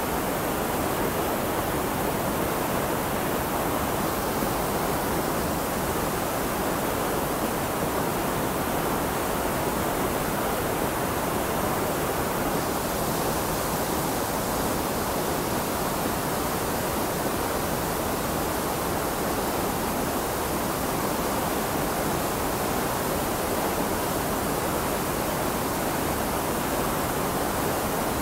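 Creek in major flood, muddy water rushing over a submerged ledge and churning into rapids; a steady, unbroken rush of water.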